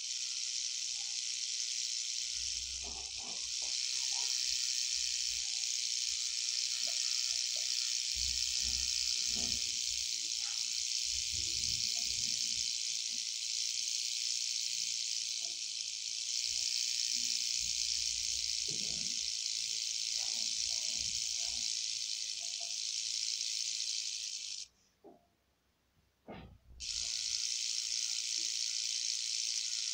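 Rattlesnake shaking its rattle: a continuous high buzz that breaks off for about two seconds near the end and then starts again, with a few low thuds underneath.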